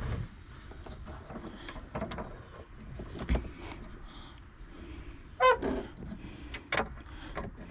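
Handling noise from screwing a car aerial into its mount by hand: scattered clicks and knocks, with a heavier thump about three seconds in.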